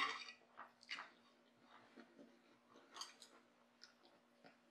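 Faint chewing of soup noodles, with a few soft, scattered mouth clicks over a faint steady hum.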